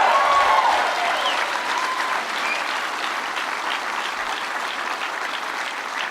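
Audience applauding after an applause line, with a few cheers in the first couple of seconds; the clapping then slowly dies down.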